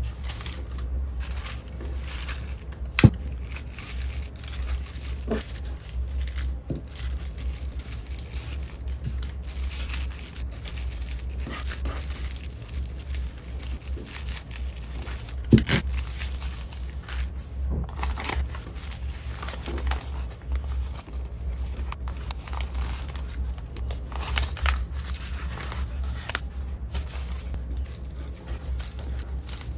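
Thin tissue paper rustling and crinkling as it is folded and pressed around small pieces of jewelry, with two sharp taps about three seconds and fifteen seconds in, over a steady low hum.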